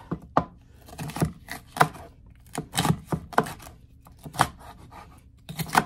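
Chef's knife chopping mini bell peppers on a cutting board: a string of uneven knife strikes, with a short lull before a last pair of strikes near the end.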